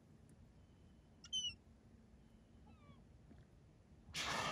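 A short, high mewing call falling in pitch about a second in, then a few faint falling chirps. Near the end comes a breathy exhale of about half a second, the loudest sound.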